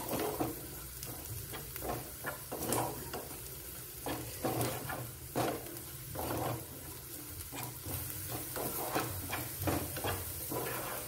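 Chopped onions sizzling in oil in a nonstick frying pan, with a spatula scraping and stirring them in irregular strokes. The onions are being fried on low heat until they turn reddish-brown.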